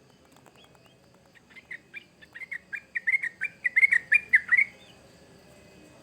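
Yellow-vented bulbul (trucukan) singing a fast run of bubbling notes for about three seconds, growing louder as it goes, over a faint steady insect trill.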